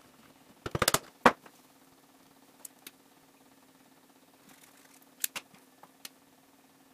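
Sharp plastic clicks and taps as Stampin' Write dual-tip markers are uncapped and handled beside a plastic ink pad case: a quick run of clicks about a second in, then a louder single click, with a few lighter clicks later. A faint steady low hum runs underneath.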